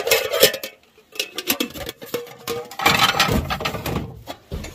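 Objects clattering and clinking as things are shifted about on a cluttered shelf: a burst of knocks at the start, scattered knocks after, and a longer run of clatter from about three seconds in.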